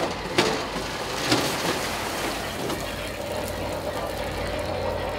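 Fishing boat's engine running steadily, with a few sharp knocks in the first second and a half. A steady hum joins in about three and a half seconds in.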